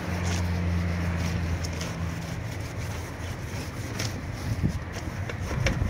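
High-pressure washer jet spraying water onto truck tires, a steady hiss, over a steady low machine hum that fades after about two and a half seconds. A few short knocks come near the end.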